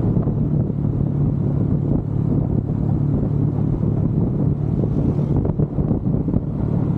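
Motorcycle engine running at a steady cruising speed, a constant low hum, with wind buffeting the microphone.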